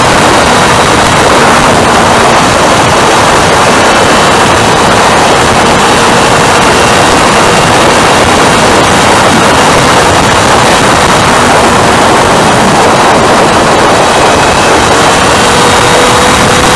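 Motorcycle travelling at speed: loud, steady wind rush over the bike-mounted camera's microphone, with a faint engine note underneath that rises slightly near the end.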